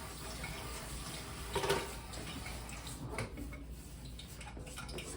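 Hands mixing flour, cornmeal and dry seasonings in a bowl: soft rustling and scraping, with a louder stroke about two seconds in and a few more around three seconds in.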